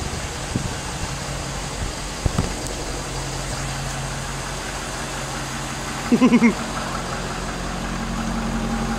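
Ford F-550's Power Stroke V8 turbo-diesel idling quietly and steadily, a low even hum. A brief pitched, pulsing sound comes about six seconds in.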